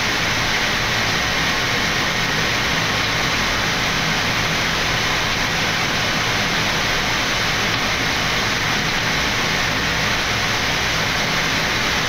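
Steady rushing flight-deck noise of a Boeing 787-9 on final approach to landing, the air rushing past the nose and windscreen blended with the cockpit's air-conditioning.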